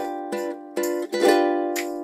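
Background music: a light instrumental tune of notes that start sharply and fade away.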